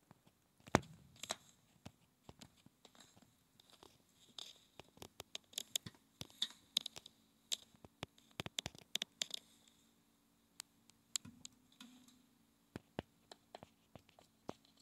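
Faint, irregular clicks and scratches, thickest in the middle of the stretch: handling noise of a phone shifting against a metal surface.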